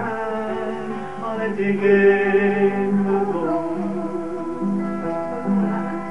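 A folk tune on acoustic guitar, with a melody line of long held notes over it.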